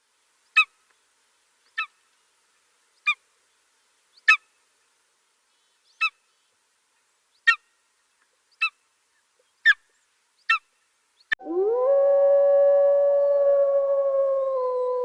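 Animal calls: about nine short, sharp calls, one every second or so. About eleven seconds in, several long overlapping howls begin, gliding slowly in pitch.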